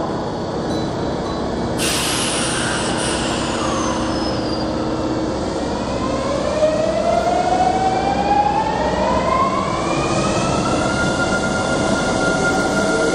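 Kintetsu 9020-series and 8600-series electric train pulling out of an underground platform. A sudden hiss of air comes about two seconds in. Then, from about six seconds in, the VVVF inverter's whine rises in several tones together and levels off near the end, over the steady noise of the moving train.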